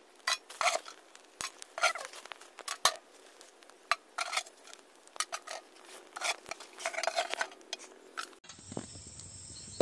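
Glowing wood embers being dropped and pushed onto an aluminium plate used as a pot lid, giving irregular clinks and taps on the metal. The coals are being piled on the lid for dum cooking, with heat from above as well as below.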